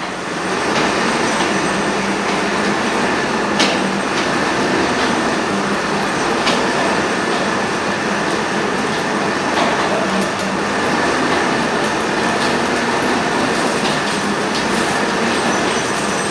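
Ox-driven mill gearing and power takeoff shaft running: a steady mechanical rattle with a faint continuous whine and a few sharp clicks.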